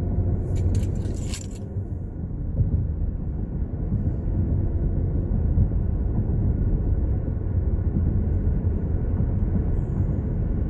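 Steady low rumble of a car on the move, heard from inside, with a brief jangle of keys or small metal items about a second in.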